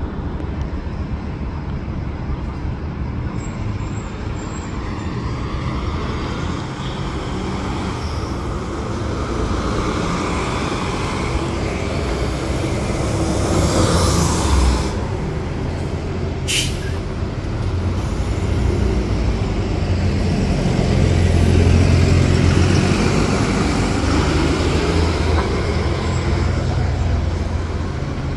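City bus engines running in street traffic, with air brakes hissing about halfway through and a short, sharp air release just after. The engine rumble grows louder later on.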